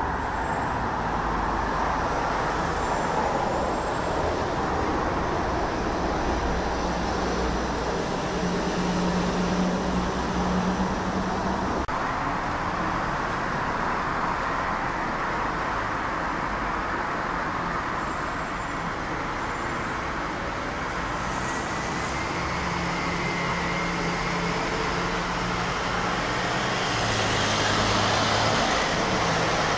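Steady low rumble of distant engines, with a low hum swelling for a few seconds at a time.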